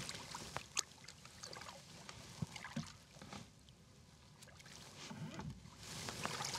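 Light water splashing and lapping at the side of a bass boat as a hooked smallmouth bass is brought to the hull and lifted out by hand, with a few faint knocks and clicks.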